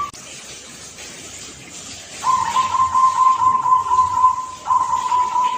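A young zebra dove (perkutut) cooing. About two seconds in it gives a rapid trilling coo on one pitch, which breaks briefly near the end and goes on as a steadier held note.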